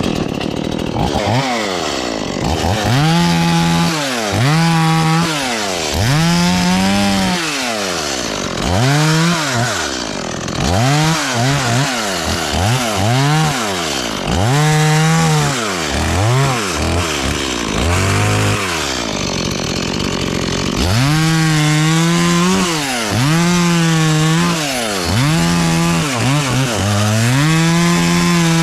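Stihl two-stroke chainsaw revving up and down again and again, throttle opened and released about once a second, as it cuts into a coconut palm.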